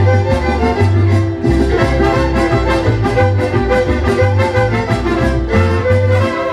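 Live mariachi ensemble playing an instrumental passage: violins playing the melody over strummed guitars and a bass line.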